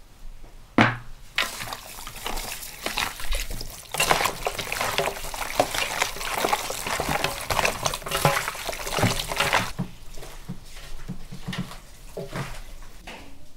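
Raw chicken wings kneaded by gloved hands with spices in a large metal bowl: wet squelching and slapping, densest in the middle and thinning to separate squishes near the end. A single knock comes about a second in.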